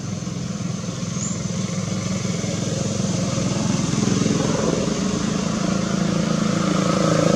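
An engine running steadily with an even pulsing hum, growing gradually louder.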